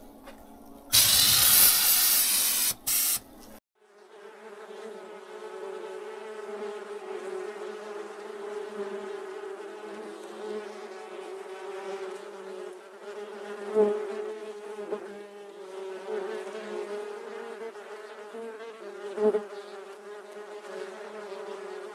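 A loud hiss lasting about two and a half seconds, then a swarm of wasps buzzing in a steady, even-pitched drone that swells briefly twice.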